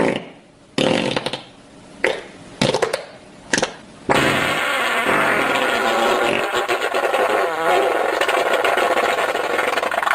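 Fart sounds: four short farts in the first few seconds, then one long continuous fart lasting about six seconds.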